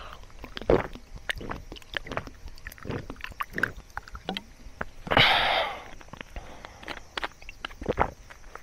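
A man drinking from a plastic water bottle: swallowing, with small clicks and crinkles from the bottle. There is a loud breathy rush about five seconds in.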